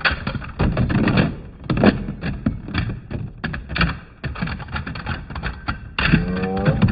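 Two plastic-and-metal Beyblade spinning tops battling in a plastic Hypersphere Beystadium: a rapid, irregular clatter of knocks as they spin, grind and clash against each other and the stadium walls.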